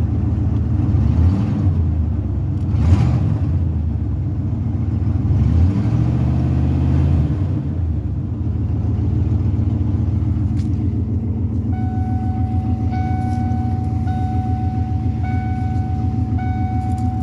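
Ford OBS F-150 with a Flowmaster exhaust running, revved twice, each time rising in pitch and dropping back to idle. It then idles steadily while an electronic beeping starts past the middle.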